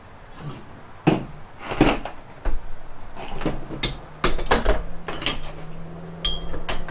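Steel parts of a manual transmission's gear set clanking and knocking together as they are handled and pulled from the case, about a dozen separate knocks, with a couple of ringing metallic clinks near the end.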